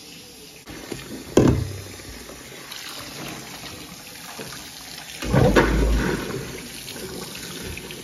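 Water running and splashing in a stainless steel kitchen sink as a plastic colander is handled under it, with a sharp knock about a second and a half in and a louder gush of water a little after five seconds.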